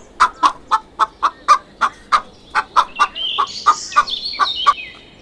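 Chicken clucking in quick short clucks, about three or four a second, then higher, drawn-out calls in the second half.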